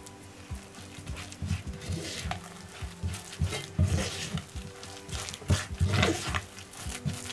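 A spoon scraping and slapping wet shrimp-and-onion paste against the ridged inside of a ceramic suribachi in quick, irregular mixing strokes, working in potato starch. Soft background music runs underneath.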